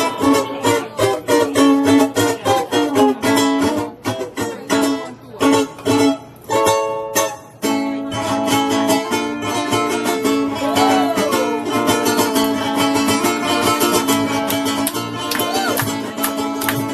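A group of ukuleles playing strummed chords. For the first half the chords come as short, separate hits with gaps between them, and from about halfway the strumming runs on without a break.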